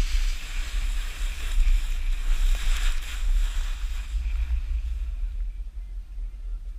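Wind buffeting a moving action camera's microphone, a heavy low rumble, over the hiss of a snowboard sliding on snow. The hiss dies away about two-thirds of the way through, leaving a fainter rumble.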